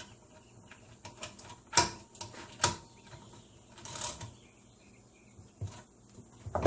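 A 12mm socket wrench and an open-end wrench tightening the nuts that hold air horn trumpets to their steel bracket: scattered metallic clicks and clinks, with a short ratcheting rasp about four seconds in.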